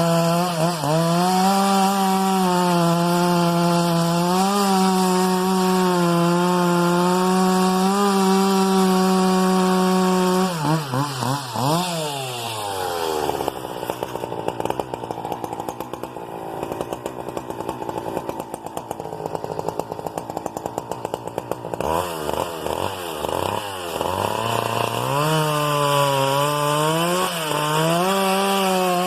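Husqvarna 395XP two-stroke chainsaw with a 33-inch bar running at full throttle through wood, its pitch sagging and recovering under load in the cut. About ten seconds in the throttle is let off and the engine drops to idle. It revs up again a little after twenty seconds and goes back to cutting.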